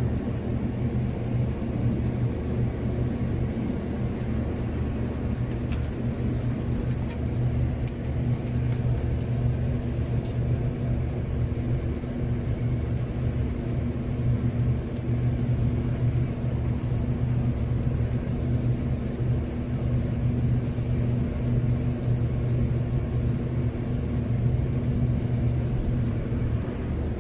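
Steady low drone of a ship's engine running, an unbroken hum with no change in pitch.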